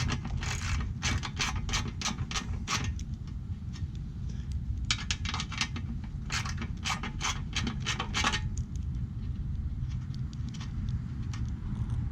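Hand socket ratchet clicking in two runs of quick clicks, about four a second, as an 8 mm bolt is backed out. A steady low rumble runs underneath.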